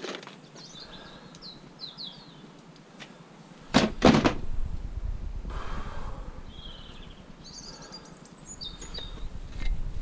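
Small birds chirping in short bursts, with one loud double knock about four seconds in, typical of scrap being handled. A low rumble follows the knock and comes back near the end.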